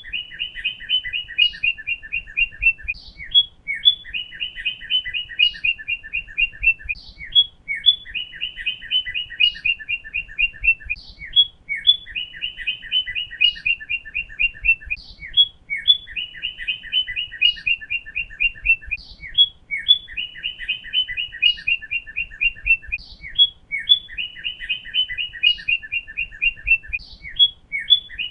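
Northern cardinal singing: the same phrase repeats about every four seconds, a few short slurred whistles followed by a fast run of clipped notes.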